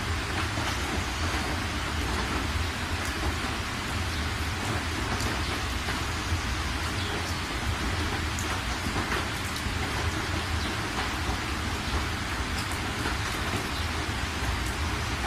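Heavy rain hitting a moving car's windshield and roof, heard from inside the cabin as a steady hiss with scattered drop ticks over a constant low rumble.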